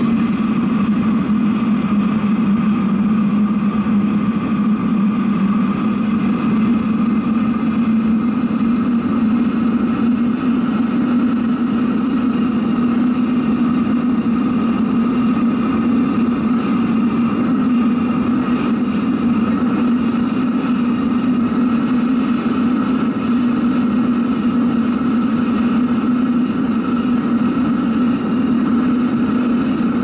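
Diesel-fuelled foundry furnace burner running with its electric blower: a steady drone with a higher whine on top. The pitch dips slightly just at the start and then holds even.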